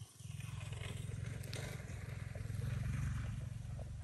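Footsteps in sandals crunching over dry leaves and twigs on a dirt bank, over a steady low rumble that swells about three seconds in.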